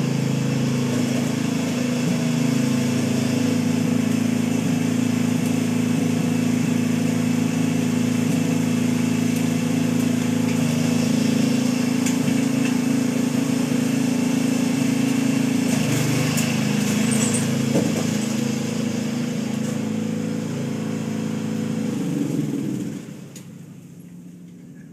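Riding lawn tractor's small engine running steadily, then shut off near the end, its pitch falling as it winds down.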